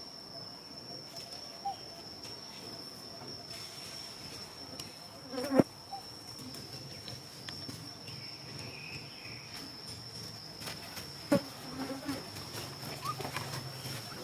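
Steady high-pitched insect drone, one unbroken tone. Two sharp knocks cut through it, one about halfway through and one about three-quarters of the way in.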